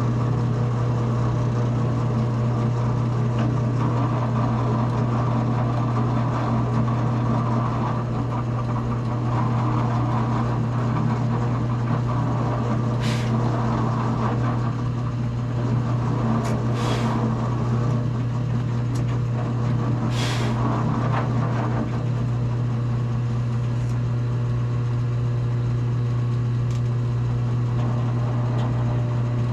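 Drill press motor running with a steady hum while the bit bores a small pilot hole through a guitar body and its template. A few short high hisses come about halfway through.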